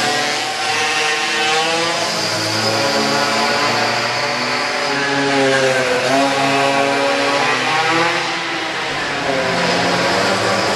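Several pocketbikes' small two-stroke engines buzzing round the track, overlapping, their pitch rising and falling as they accelerate and slow for corners, inside a large hall.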